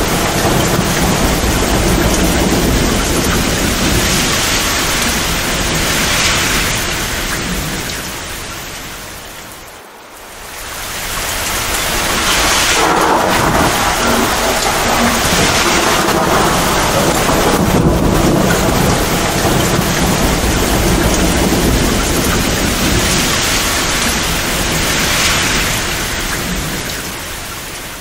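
Heavy, torrential rain with thunder rumbling low beneath it. The sound fades smoothly down about ten seconds in and swells back up.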